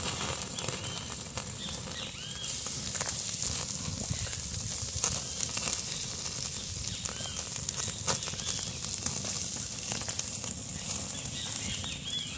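Steaks and a sausage sizzling on a perforated metal grill grate over an open wood fire, with a steady hiss and small crackles and pops from the burning wood.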